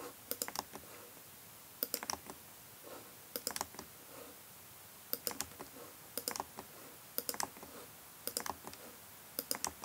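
Computer keys being tapped in short quick bursts, a few clicks in each, about once a second: the web shop page being refreshed over and over while it loads.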